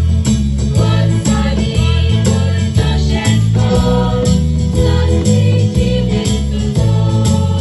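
A group of girls singing together into stage microphones over amplified music with a steady beat and a bass line.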